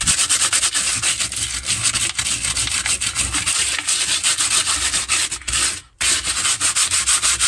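Rusted sheet-steel trunk floor being sanded by hand with 400-grit sandpaper: rapid back-and-forth scratchy strokes, with a brief break about six seconds in. The rust is being taken off to prepare the metal for primer.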